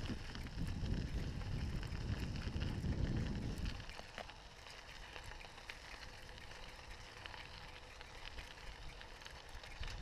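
Bicycle riding on a gravel path: wind rumbling on the microphone over the crunch and crackle of the tyres on gravel. After nearly four seconds the wind rumble drops away, leaving a quieter hiss with faint crackles.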